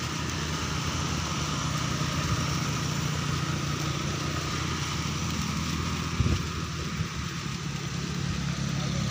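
A small engine running steadily at a low, even hum, with a brief thump about six seconds in.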